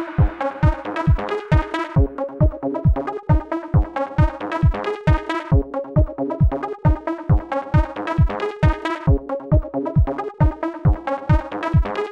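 Electronic background music with a steady kick-drum beat, about four beats a second.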